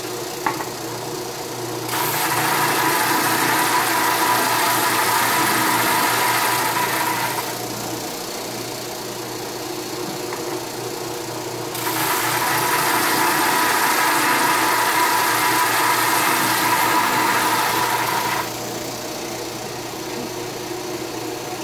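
Flatmaster drum sander running with a steady motor hum. A board's edge is fed against the sanding drum twice, each pass adding a loud sanding hiss for five to six seconds.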